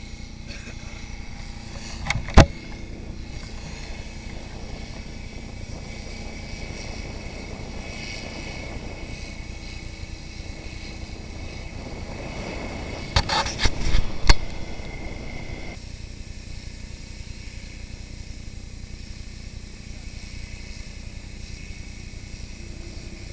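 Aerial platform's master-stream nozzles flowing water at close range: a steady rushing noise. Sharp knocks come about two seconds in and again in a quick cluster around thirteen to fourteen seconds in.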